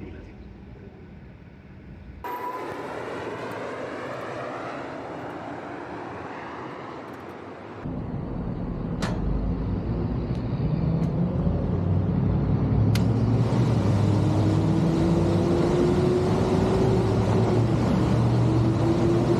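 Carrier rooftop HVAC unit running: a steady mechanical drone that starts suddenly about two seconds in and grows louder and deeper about eight seconds in, with a hum that climbs slowly in pitch in the second half.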